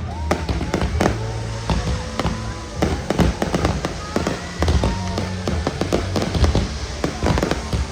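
Fireworks display: a dense, irregular run of bangs and crackling reports from aerial shells bursting, several a second throughout.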